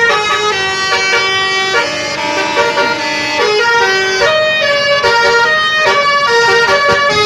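A bus's Basuri telolet horn playing a tune: loud, held musical horn notes sounding a few at a time, stepping from pitch to pitch every half second or so.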